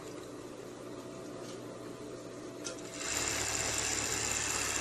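Overlock (serger) sewing machine: a faint steady hum, then about three seconds in a fast, even run of stitching as the waistband seam is sewn.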